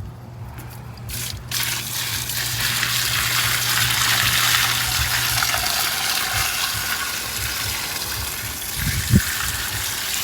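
Water gushing from a newly installed in-ground yard hydrant, starting about a second and a half in and running steadily, with a low hum for the first half and a short knock near the end.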